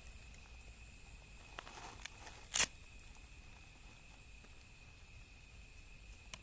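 Wood campfire crackling quietly, with one sharp pop about two and a half seconds in and a few fainter ticks, over a faint steady high tone.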